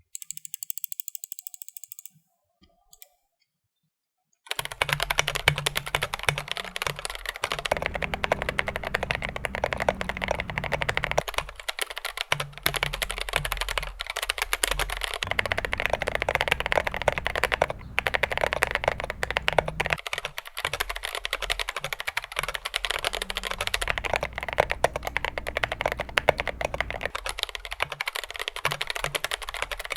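Glorious GMMK Pro mechanical keyboard being typed on rapidly, a dense run of keystroke clicks with a few short lulls. It starts about four seconds in, after a brief tonal sound and a moment of silence.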